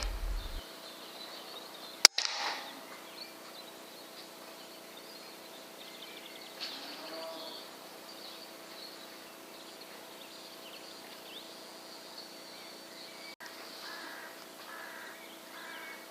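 A single air rifle shot about two seconds in, a sharp crack with a brief ring-off. Faint short chirps and squeaks follow later.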